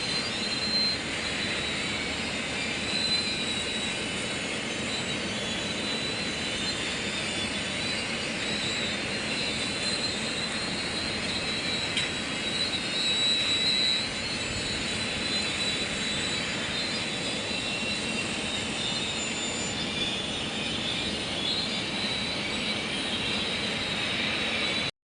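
Heavy diesel machinery running steadily, with a thin high whine over the engine noise and a few brief louder swells, the longest near the middle.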